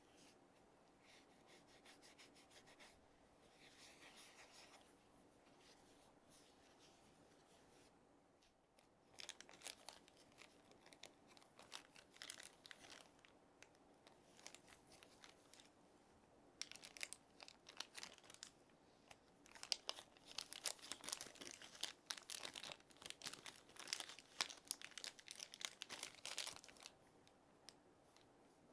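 Packaging being handled and unwrapped: soft, faint rustling at first, then from about nine seconds in, irregular crinkling and tearing, busiest in the second half.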